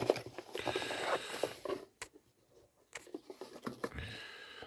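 Rustling and light clicking of packaging and accessories being handled during an unboxing. The handling stops for about a second, then a few quieter clicks and a soft knock follow near the end.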